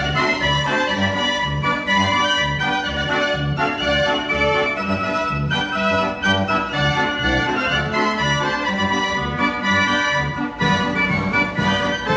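Mechanical organ playing a lively tune, organ-like pipes over a steady oom-pah bass about two beats a second.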